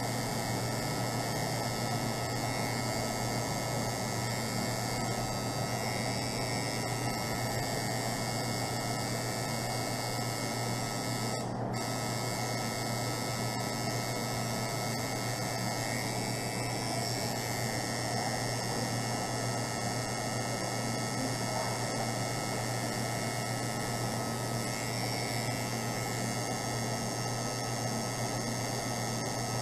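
Tattoo machine buzzing steadily as the needle works ink into skin.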